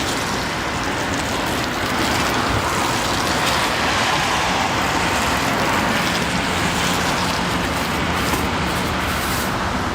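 Steady roadside traffic noise: a continuous wash of passing vehicles, with a faint engine hum in the middle.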